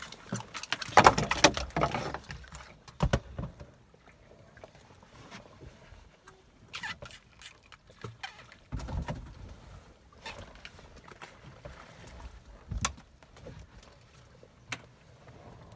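Handling sounds on a wooden fishing boat as a fish is taken off a handline: irregular knocks, taps and rustling, with a louder flurry of knocks and rustles about a second in and a few single sharp knocks later.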